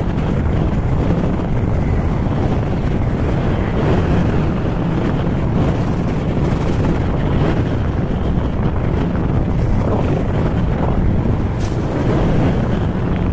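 Steady wind rushing over a camera microphone held out from a moving Honda ADV160 scooter, with the scooter's engine and road noise running underneath.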